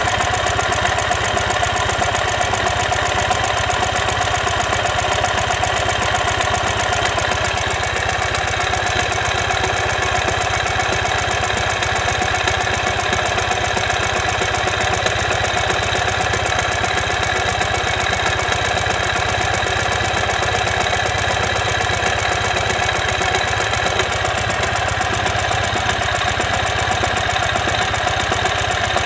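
2015 Ural Ranger's air-cooled boxer twin engine running at a steady speed with an unusual knocking noise: the sound of a collapsed front crankshaft bearing.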